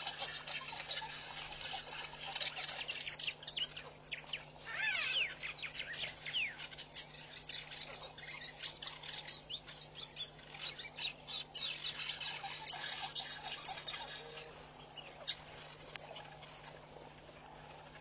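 Chorus of many small birds chirping and twittering, with quick rising and falling calls that come thickest in the first half, over a faint steady low hum.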